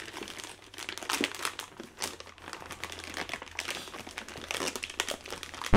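Plastic poly mailer bag crinkling as it is pulled open by hand, a busy run of small crackles.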